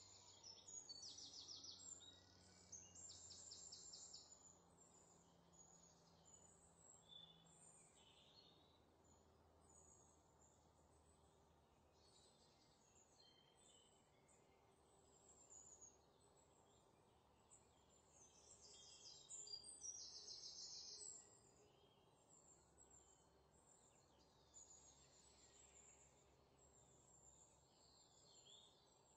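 Faint birdsong: scattered high chirps, with two rapid trills, one about a second in and another about two-thirds of the way through, over a low steady hiss.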